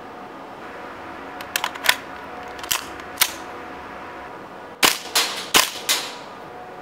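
WE M4 CQB open-bolt gas blowback airsoft rifle fired shot by shot: about ten sharp cracks of gas and bolt cycling in irregular groups, the four loudest close together near the end.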